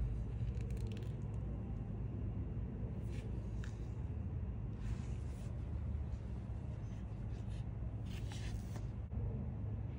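Steady low room hum, with faint rustling and light taps a few times as gloved hands handle a smartphone.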